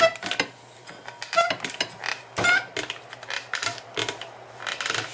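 A rubber double-bellows air spring and steel suspension brackets being handled and shifted under a bar clamp: an irregular string of clicks and knocks with a few short creaks.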